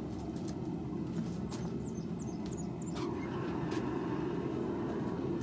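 Forge running with a steady low roar. A few quick, high, falling bird chirps come through in the middle.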